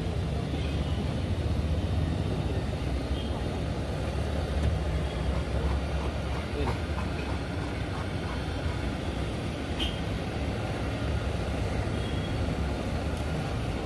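Steady low rumble of passing street traffic, with a few faint clicks in the middle.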